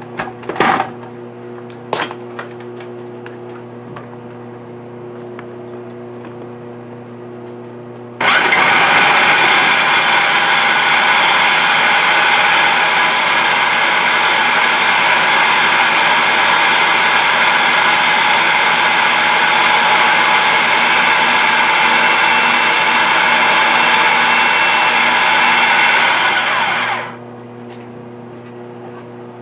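A few light knocks as the blender jar is handled. Then, about eight seconds in, a countertop blender starts and runs loud and steady for about nineteen seconds, whipping a white batter to a froth, before it winds down and stops.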